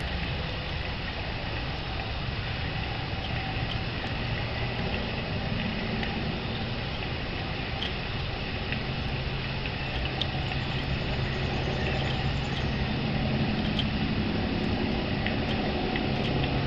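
Steady low mechanical hum over an even rushing noise, like a motor or engine running, with a few faint short ticks above it.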